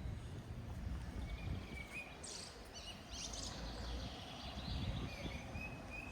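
Small birds chirping and twittering in short calls and brief sliding notes from about two seconds in, over a steady low rumble of wind on the microphone.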